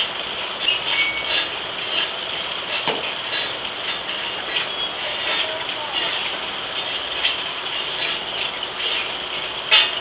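Antique steam-powered circular sawmill running steadily, with scattered metallic clicks and clanks from the log carriage as its levers are worked, and a sharper click near the end.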